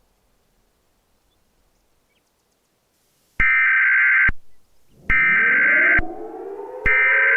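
Emergency Alert System SAME header: three loud bursts of screechy digital data tone, each just under a second, starting about three and a half seconds in after near silence. From the second burst on, a lower tone slides up in pitch and levels off underneath.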